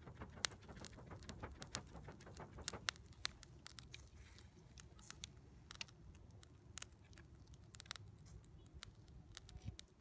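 Kebabs grilling on metal skewers over charcoal: irregular sharp crackles and pops from the hot coals and the cooking meat, thick for the first few seconds, then thinning to scattered pops.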